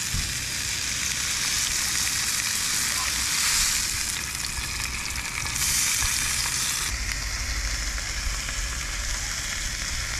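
Sesame-crusted ahi tuna steaks sizzling as they sear in a very hot cast iron skillet. It is a steady frying hiss that shifts abruptly in level a few times.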